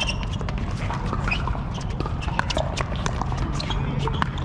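Sharp pops of pickleball paddles striking the plastic ball and the ball bouncing on the court, many irregular taps close together, over a steady low rumble.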